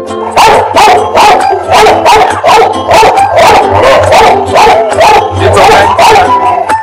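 A young puppy crying out in high, wavering yelps and howls, repeated in quick bursts about two or three times a second, over background music.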